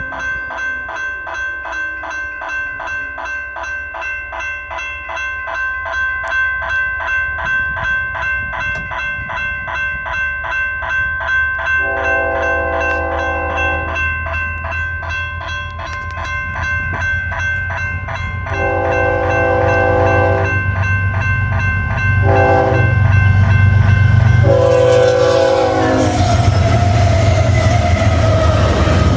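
Electronic railroad crossing bells ringing in a fast, steady repeating pattern, one of them the defective e-bell making an odd sound. A train horn sounds the crossing signal about halfway through: two long blasts, a short one and a long one. A low rumble builds into the loud noise of the train reaching the crossing near the end.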